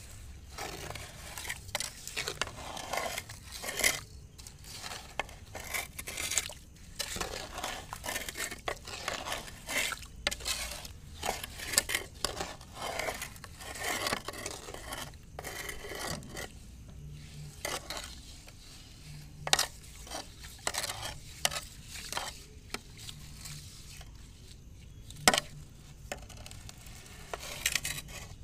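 Metal cooking pots and utensils clattering and scraping, an irregular run of knocks and scrapes with a few sharper clanks.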